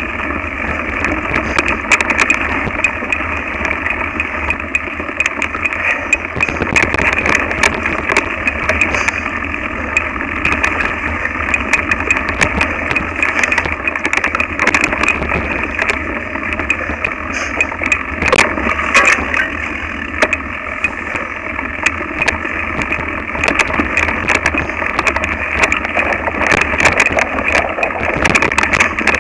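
Mountain bike rattling without a break as it rides a rough, bumpy dirt trail, picked up close by a camera clamped to the handlebar: chain, frame and components clattering, with frequent sharp knocks from the bumps.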